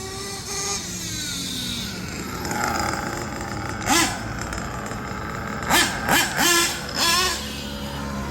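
Small nitro engine of a Kyosho Inferno NEO ST 3.0 RC truggy running, its pitch falling away over the first couple of seconds. Then five quick sharp revs: one about four seconds in and four more in quick succession around six to seven seconds.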